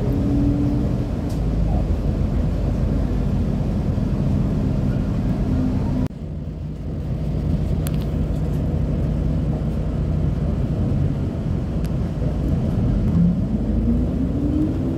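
Road vehicle's engine running steadily while driving along a wet street. The sound drops out for a moment about six seconds in, and near the end the engine note rises as it accelerates.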